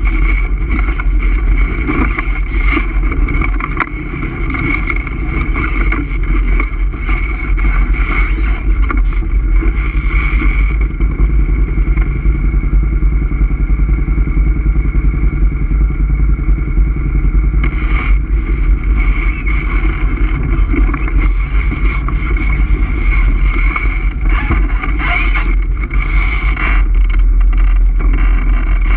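ATV engine running steadily under way, with heavy low rumble. For several seconds midway the sound loses its upper edge, then comes back.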